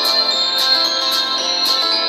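Instrumental background music with a steady beat of about two light strikes a second.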